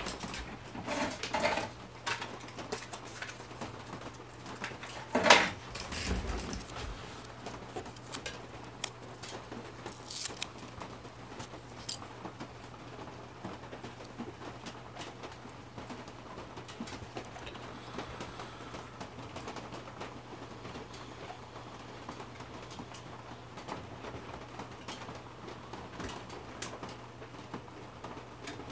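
Workbench handling of a fresh single-edge razor blade and a cork key riser being shaved flat: scattered light clicks and scrapes, with a sharp knock about five seconds in and a bright scrape near ten seconds, over a steady low hum.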